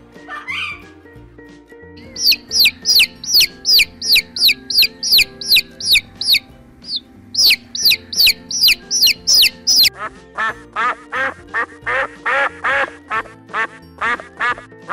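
Quail chicks peeping in a fast run of high, sharply falling peeps, about three a second. About two-thirds of the way through, Canada geese take over, honking in quick repeated calls. Steady background music runs underneath.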